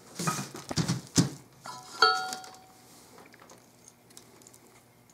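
Metal engine parts being handled on a bench: a few dull knocks, then one sharp metallic clink about two seconds in that rings briefly before dying away, followed by faint small ticks.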